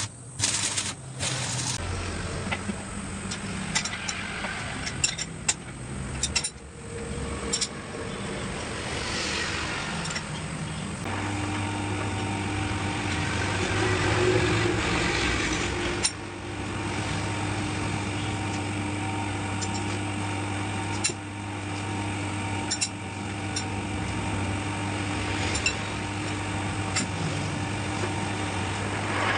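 Scattered metallic clinks and knocks, then a machine motor starts about a third of the way in and runs with a steady hum, with occasional clicks over it.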